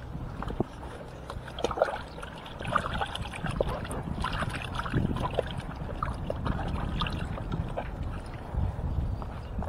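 Wind buffeting the microphone as a steady low rumble, with many small scattered clicks and knocks from handling plastic bait buckets and a rope.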